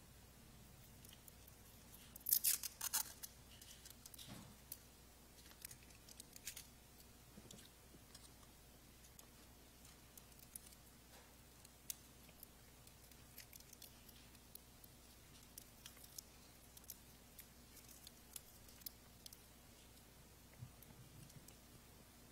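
Plastic packaging of communion bread and juice crinkling and clicking as it is handled and opened, with a crisp burst of crackling about two seconds in and faint scattered clicks after.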